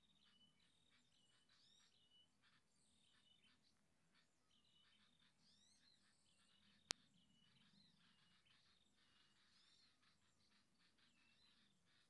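Faint chirping of small birds: repeated short high notes and quick rising calls, with one sharp click about seven seconds in.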